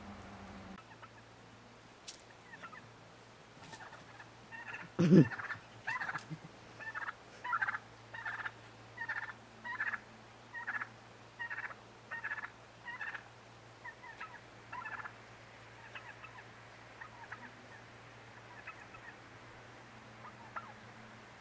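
White domestic turkey gobbling in a quick, regular run of short calls, about one every two-thirds of a second for some ten seconds, then a few fainter calls. A single loud thump comes just as the calls begin.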